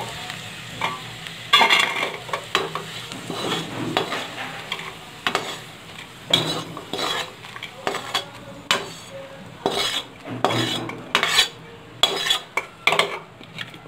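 Metal spatula scraping and clanking against a metal kadhai in quick, irregular strokes as fried pumpkin-peel chips are scooped out onto a steel plate, over a light sizzle of leftover hot ghee.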